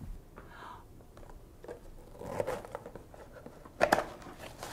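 Faint rustling as hands handle something in a lap, with small clicks, and two sharp clicks close together near the end.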